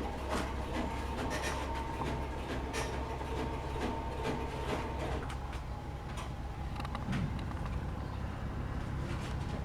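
Steady low mechanical hum with a faint high whine, under scattered light clicks and knocks at irregular intervals.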